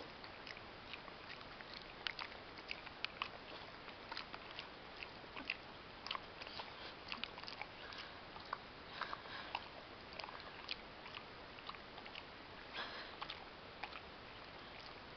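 Boxer dog chewing and smacking at sticky caramel candy, with irregular wet clicks and smacks of the jaws and tongue throughout. The candy gums up its mouth, like a dog working at peanut butter.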